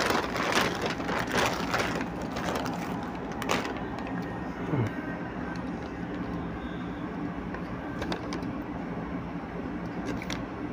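Plastic bag crinkling and rustling in the hands for the first three seconds or so, then a steady low hum with a few light clicks and knocks as a can is handled.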